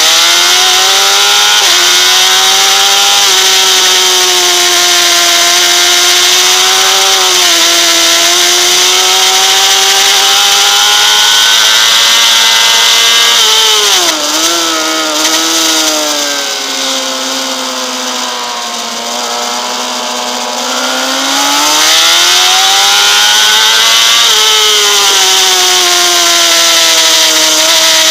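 Honda CBR600RR's inline-four engine running at high revs, heard from on the bike with steady wind rush over it. The engine pitch holds high and climbs, drops sharply with a few quick flickers about halfway, stays lower for several seconds, then rises again and eases off near the end.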